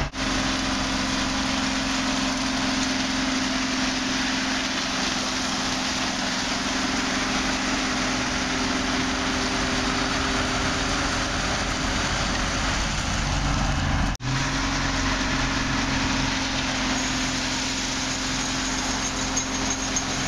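Diesel engine of a rail ballast regulator running steadily while its plow drags and shoves crushed-stone ballast along the track, a constant gritty hiss and rattle of stones over the engine drone. The sound drops out for a moment about 14 seconds in.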